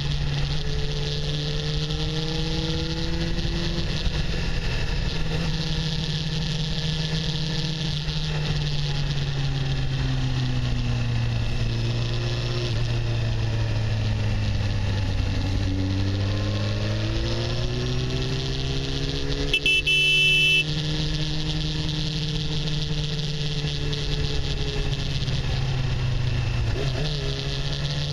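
Honda CBR600's inline-four engine running under steady throttle through a series of bends, its note sinking slowly then climbing again, over constant wind rush. A brief high-pitched beep sounds about two-thirds of the way through.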